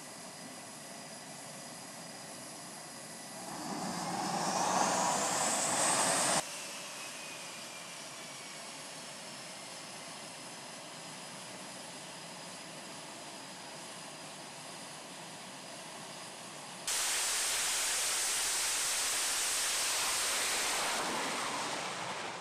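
F/A-18F Super Hornet twin jet engines running with a steady whine. About four seconds in, the whine rises in pitch and grows louder as the engines spool up, then cuts off abruptly. Near the end a sudden, much louder roar of a jet at full power for a catapult launch fades away over the last second or so.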